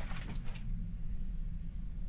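A few footsteps on a debris-strewn floor for the first moment, then only a steady low rumble.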